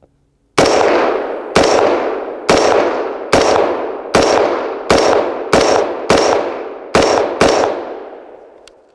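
Seekins Thunder Buddy AR-15 in 5.56mm, fitted with a muzzle brake, fired semi-automatically with M855 ball: about ten shots at roughly one a second, coming slightly quicker towards the end. Each report echoes and fades before the next.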